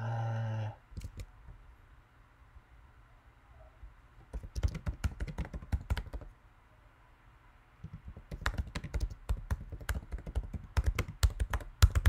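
Typing on a computer keyboard in two runs of rapid keystrokes, the first about four seconds in and the second from about eight seconds in, with a couple of single key clicks about a second in.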